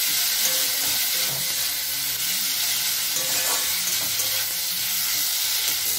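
Chopped tomatoes and onions frying in hot oil in a metal kadai, sizzling steadily while a metal spatula stirs them and scrapes against the pan.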